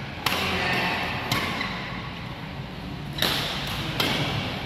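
Badminton rackets striking a shuttlecock in a rally: three sharp strokes a second or two apart, each with a short echo in the hall.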